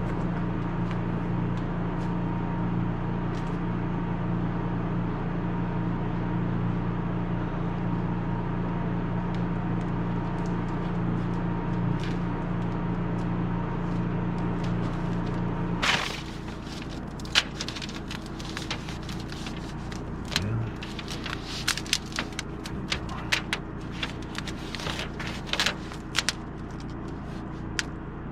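DeWalt electric hand planer running steadily, then cutting off about sixteen seconds in. After it, scattered light clicks and taps.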